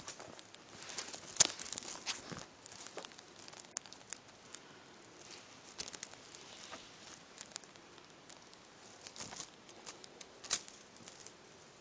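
Maine Coon kitten scrabbling and pouncing on a fabric bedspread while playing with a teaser toy: faint, irregular scratches, rustles and light clicks, the sharpest about a second and a half in and another near the end.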